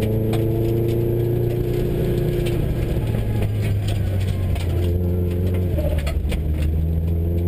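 Subaru rally car's engine heard from inside the cabin, pulling with revs climbing steadily, easing off about two and a half seconds in, then climbing again from about five seconds. Gravel ticks and pings against the car throughout.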